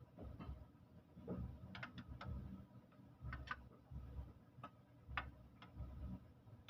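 Scattered light clicks and taps at an irregular pace, with dull low knocks in between, as of hand tools and small parts being handled.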